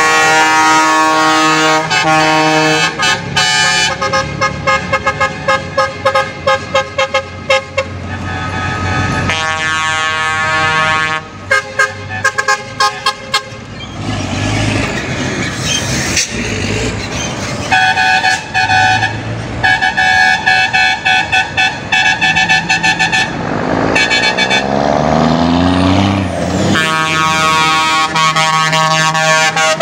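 Truck air horns sounding over and over as heavy trucks pass: long held chords and rapid runs of short blasts, over diesel engines and tyre noise. Near the end a passing truck's engine climbs in pitch.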